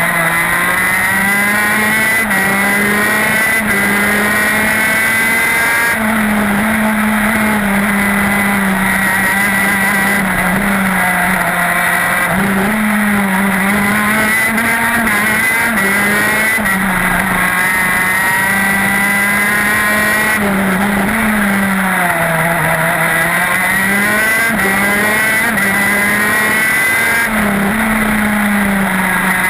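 TM K9B 125cc two-stroke shifter kart engine at racing speed, heard onboard. Its note climbs and drops again and again as the kart accelerates through the gears and brakes for corners.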